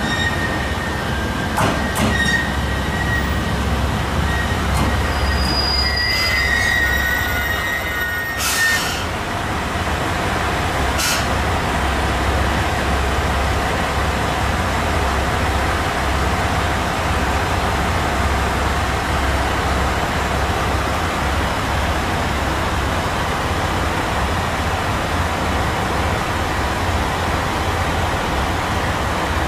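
Diesel railcar pulling into the platform, its wheels and brakes squealing with high whistling tones for the first eight seconds, a short sharp burst about eight seconds in, then the railcar standing with its diesel engine idling steadily as a low constant hum.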